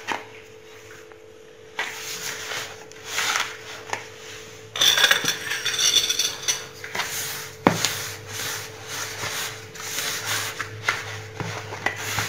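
A hand rubbing semolina moistened with melted butter and oil around a bowl: an irregular rustling in uneven strokes that begins after a second or two of near quiet, with one sharp tap about two-thirds of the way in. The fat is being worked into the grains until the semolina turns sandy.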